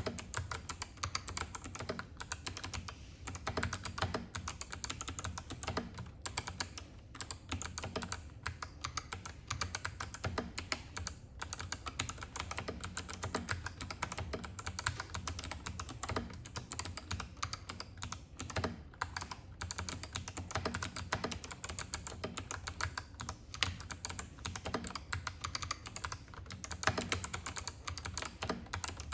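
Fast, continuous typing on a GRKB Brick Vader mechanical keyboard with stock, unmodified Kailh Box Navy clicky switches: a dense stream of sharp key clicks with a few short pauses.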